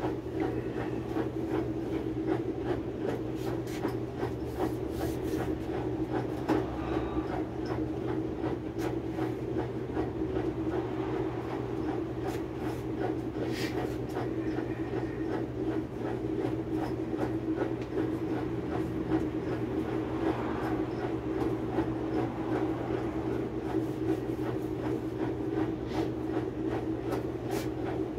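Mabe top-load washing machine running a test after its wash basket was refitted: a steady motor hum with continual light clicking and clatter.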